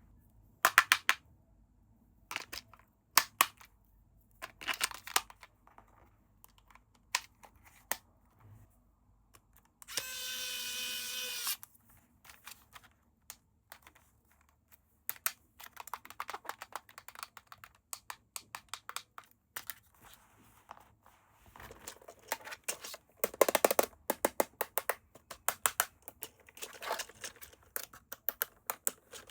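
Toy packaging being handled and opened: plastic and cardboard crinkling, tearing and clicking in scattered short bursts, busier in the last few seconds. About ten seconds in, one steady pitched tone sounds for about a second and a half.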